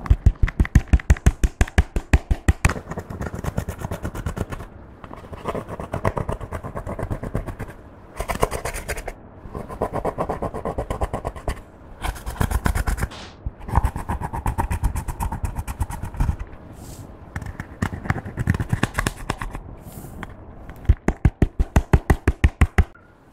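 A plastic stick scraping and crumbling pressed eyeshadow out of a palette's pans in rapid strokes, about ten a second in the fastest runs near the start and near the end.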